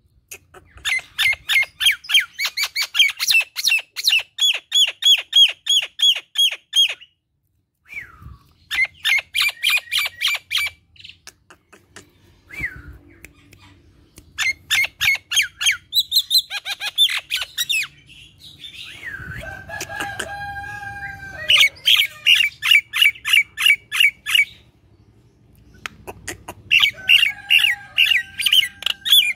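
Common myna calling: rapid runs of repeated harsh, chattering notes in bursts of a few seconds, broken by short pauses, with one drawn-out lower note about two-thirds of the way through.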